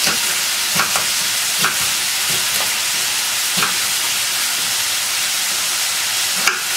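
Steady sizzle of chopped onion and carrot frying in vegetable oil in a pan. A knife knocks on a wooden cutting board now and then, about eight times, as a bell pepper is sliced into strips.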